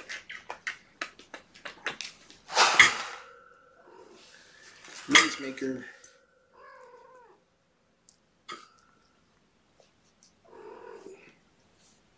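Cats meowing, with two loud drawn-out cries about three and five seconds in and softer calls after them. A quick run of sharp clicks, about six a second, comes first.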